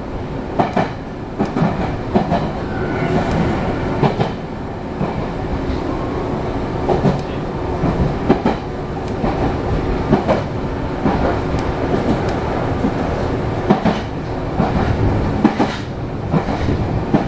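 Meitetsu electric commuter train running along the track: a steady rumble of wheels on rails, broken by sharp clicks about every second as the wheels pass rail joints.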